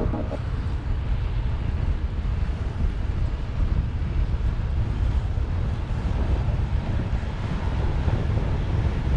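Wind buffeting the camera microphone on a bicycle speeding down a long hill: a steady low rumble.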